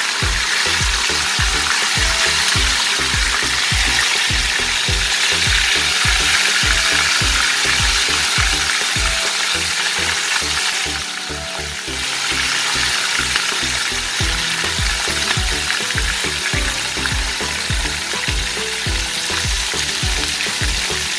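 Whole Indian mackerel frying in hot oil in a pan: steady sizzling that dips briefly about halfway through. Background music with a regular low beat plays underneath.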